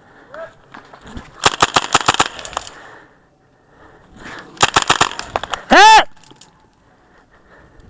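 Airsoft guns firing in rapid automatic bursts, about ten shots a second: one burst of about a second, then a shorter one about five seconds in. A loud, short shout right after the second burst is the loudest sound.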